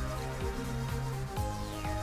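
Electronic background music: held synth notes over a bass line that shifts pitch partway through, with a falling high sweep near the end.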